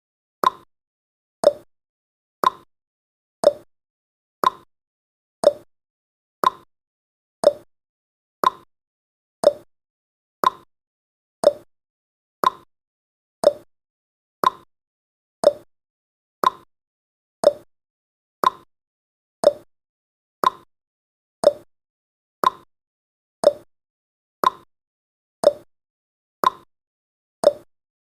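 Countdown timer's ticking sound effect: a short sharp click once a second, seeming to alternate between a higher and a lower tick like a clock's tick-tock.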